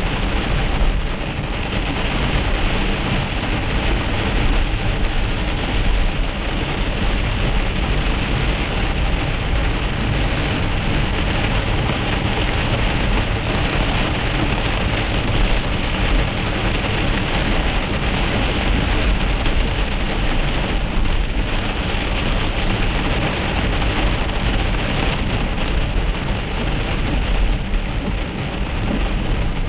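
Heavy rain mixed with small hail pelting a moving car's roof and windshield, heard from inside the car as a dense, steady patter over the low rumble of the car driving on the wet road.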